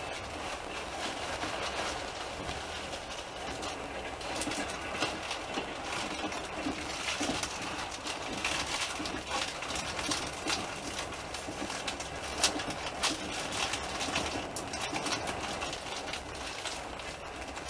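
Moving passenger train: a steady rumble and rattle of the carriage with irregular clicks of the wheels over the rails, and one sharper knock about two-thirds of the way through.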